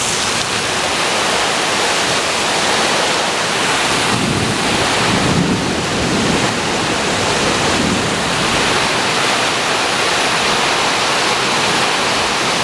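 Steady loud rushing of hurricane wind and heavy rain, with wind buffeting the microphone.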